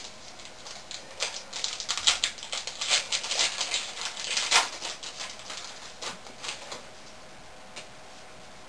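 Cardboard hockey trading cards being shuffled and flicked through by hand: a quick, irregular run of papery clicks and rustles that thins out near the end.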